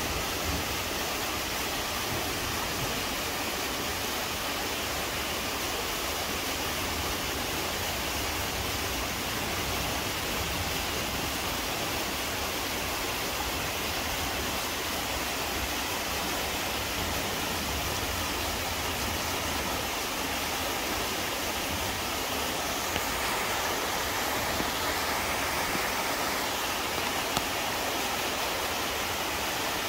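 Waterfall pouring steadily into a rocky mountain valley pool, a constant rushing roar of falling water, with a few faint ticks near the end.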